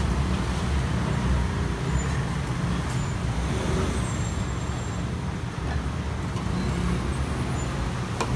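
Steady low rumble of background noise at a street food stall, with a couple of sharp clicks near the end.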